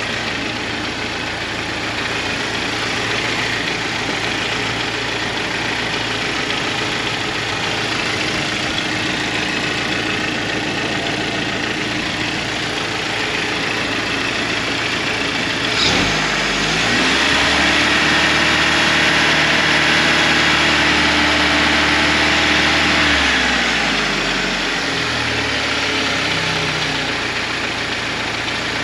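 Jeep Cherokee XJ engine idling with no throttle as it warms up. About halfway through there is a click, then a louder hum rises in pitch, holds steady for about six seconds and winds back down.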